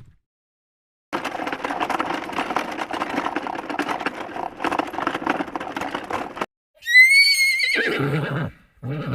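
Horse hooves galloping for about five seconds, then a horse neighing: a loud, quavering high whinny that falls in pitch, followed by a brief low call near the end.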